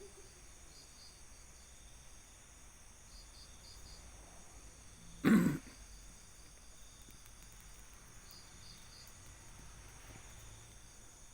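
Night insects, crickets chirping in short groups of two or three over a steady high insect drone. About five seconds in, one short loud sound cuts through them.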